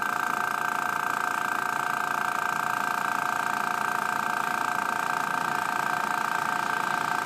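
Small airbrush mini compressor running steadily with an even whine, refilling the air tank after it was drained, the pressure climbing from about 40 to past 50 psi.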